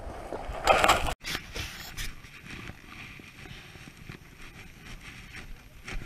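Footsteps crunching on lake ice for about the first second. The sound cuts off abruptly, and after that only a faint rustle of wind on the microphone remains, with a few light ticks.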